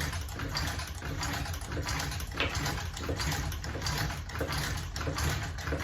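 Battered ceiling fan running: a steady low rumble with rapid, uneven clicking from its damaged parts.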